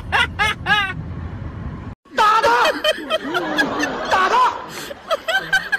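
A person laughs in quick repeated bursts over the low rumble of a moving car. The sound cuts off sharply and is followed by a woman talking, mixed with more laughter.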